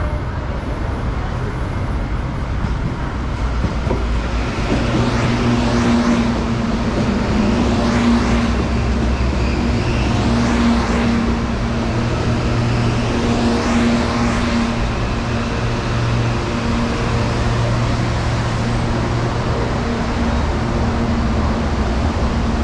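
Electric commuter train moving at a station platform over steady road traffic noise. A low hum sets in about four seconds in, with rising and falling whines over it.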